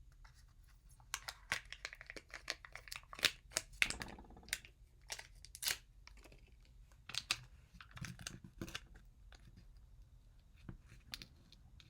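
Foil-and-plastic packaging of a Kinder Joy egg's snack half being peeled open and handled: a quiet, irregular run of crinkles and tearing crackles.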